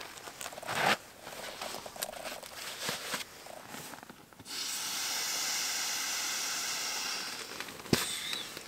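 Rustling and light metallic clinks as thin metal stove plates are slid into a fabric pouch, then a steady hiss of air for about three seconds as an inflatable sleeping pad is pressed flat, ending with a sharp click.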